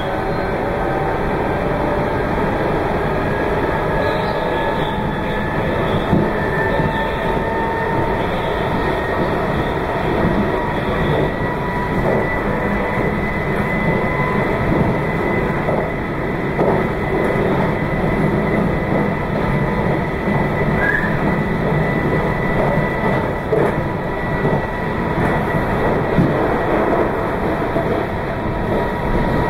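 Meitetsu 2200 series electric train running at speed, heard from inside the car: a steady rolling rumble with a thin motor whine that climbs gently in pitch over the first dozen seconds.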